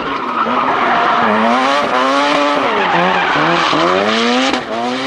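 Mazda RX-7 drift car sliding with its rear tyres spinning and screeching. The engine revs climb and drop several times as the car is steered through the drift.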